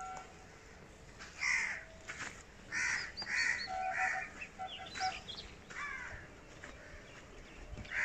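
Crows cawing: about half a dozen short, harsh caws over the first five seconds, with faint, thin chirps of smaller birds among them.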